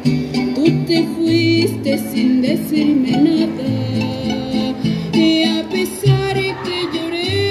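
Mariachi band playing, with violins carrying the melody over guitarrón bass notes, and a woman singing.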